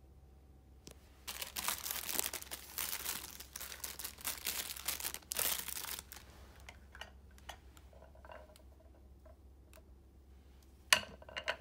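Thin plastic wrapping crinkling as packaged disposable slippers are handled and picked up, followed by a few light clicks and one sharp knock near the end.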